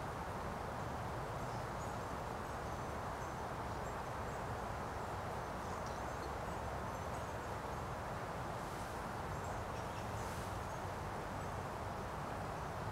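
Steady outdoor background noise, a constant even hiss, with faint high-pitched chirps now and then.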